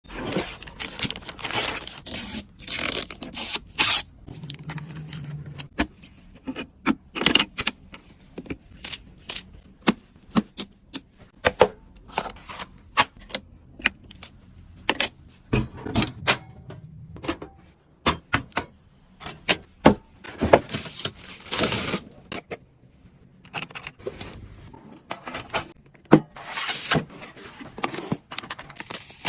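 Computer hardware being handled and fitted together by hand: irregular sharp clicks, knocks and short scrapes of parts and fasteners.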